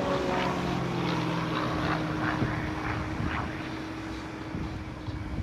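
Aerobatic propeller plane's engine droning in flight, its pitch dropping as it passes, then holding steady while it slowly fades.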